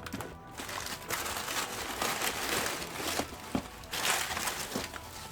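Packing newspaper and plastic packaging crinkling and rustling in irregular bursts as they are handled, with a few small clicks.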